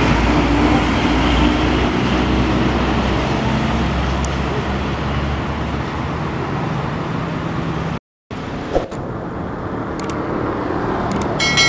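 A heavy diesel tanker truck passes close by, its low engine rumble fading away over the first several seconds. After a brief cut in the sound about eight seconds in, steady road traffic noise follows.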